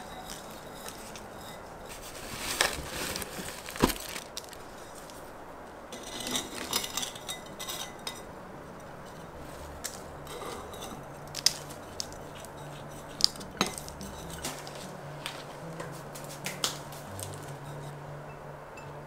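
Terracotta plant pots and a glass bowl being handled on a table: scattered sharp clinks and knocks, with the crumbly rustle of potting soil being pressed in by hand. A few of the clinks, a little past halfway, stand out louder than the rest.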